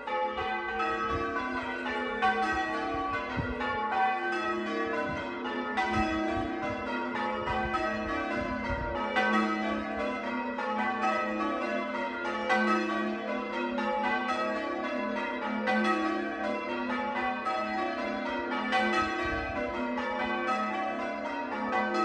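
Church tower bells ringing a continuous peal in change ringing, the bells struck one after another in a steady, even sequence.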